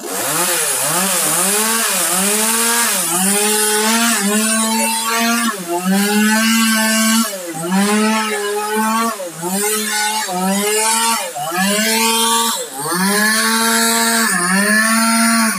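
Two-stroke chainsaw cutting into a dead agarwood log, its high engine note repeatedly sagging and recovering about once a second as the chain bites into the wood.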